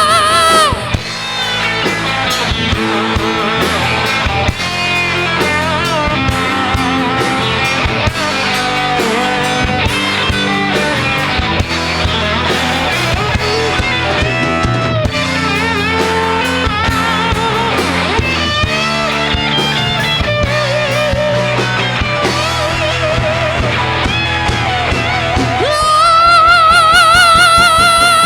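Live rock band playing an instrumental break of a power ballad: lead guitar lines over bass and drums. A long held note with heavy vibrato comes in near the end.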